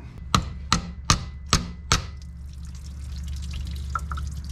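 A socket wrench on a long extension clicking about five times, evenly spaced, as the water pump bolts are worked loose. Then engine coolant trickles and drips out of the loosened pump, over a steady low hum.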